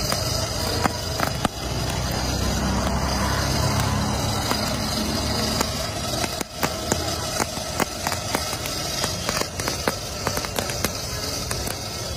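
Small blower fan running steadily, forcing air into a charcoal brazier with a hum and rushing hiss, while sharp crackles and clicks come from the coals and roasting corn. A low rumble swells for a few seconds about a second and a half in.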